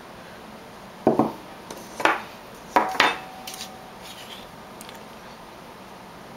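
A drinking glass knocking and clinking against a ceramic plate: about five sharp strikes in the space of two seconds, the last leaving a short ring.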